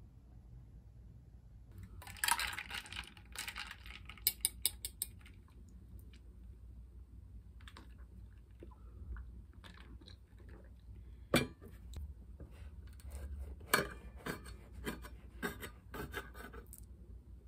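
Tableware clattering: a run of clinks, taps and scrapes starting about two seconds in, with a few sharper knocks in the middle and a busy cluster near the end.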